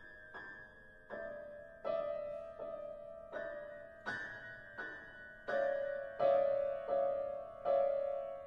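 Piano playing repeated chords, about one every three-quarters of a second, each ringing on under the next. The chords grow louder in the second half.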